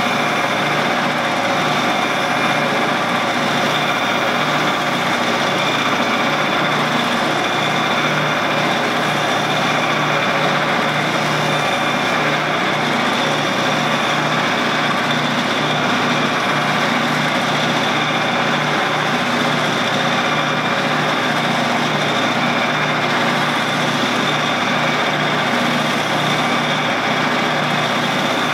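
Shopsmith running steadily as a lathe, spinning a stainless steel rod for polishing: an even motor hum with a thin high whine on top.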